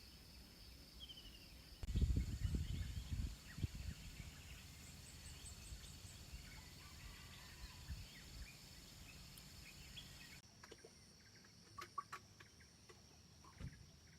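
Faint outdoor nature ambience: a steady high insect drone with scattered bird calls, and low rumbles of wind on the microphone for a couple of seconds near the start. The background changes abruptly about ten seconds in, after which pulsing insect chirps and a few sharp bird calls are heard.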